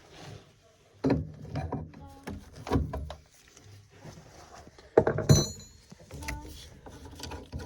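Hand tools and boiler parts knocking and clicking during a boiler strip-down: a string of separate sharp knocks and clicks, with one clink about five seconds in that rings briefly.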